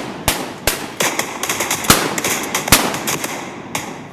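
Shotguns firing, about half a dozen shots at uneven spacing, each with a short echoing tail, the later ones weaker.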